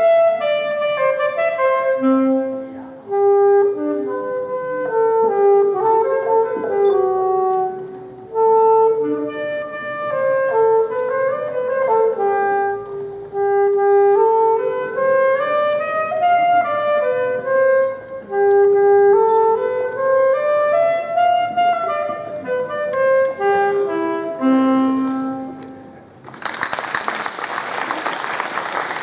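Solo saxophone playing a slow melody, one held note at a time. The tune ends near the end, and applause breaks out.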